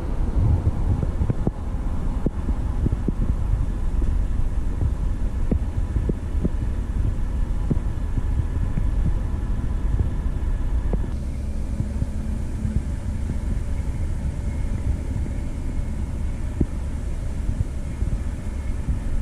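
Vehicle running, a steady low rumble of engine and road noise with scattered light clicks; the higher part of the sound falls away about eleven seconds in.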